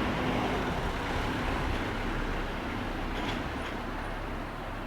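Street traffic: a motor vehicle's engine and tyre noise close by, slowly fading away.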